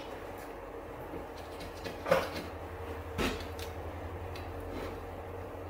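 Quiet handling and scraping as the old dried third-brake-light seal is scraped and peeled off the truck's cab roof, with a couple of short scrapes about two and three seconds in. A steady low hum runs underneath.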